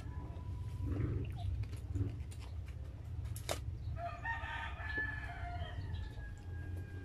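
A rooster crows once, starting about four seconds in and lasting about a second and a half, over a steady low hum; a few sharp clicks come shortly before it.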